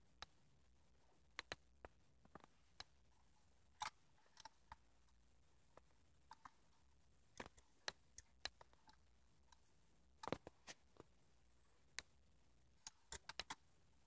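Faint, scattered clicks and taps at irregular intervals from canaries moving about a wire cage: feet landing on perches and wire, beaks knocking on the plastic feed cups. A quick run of clicks comes near the end.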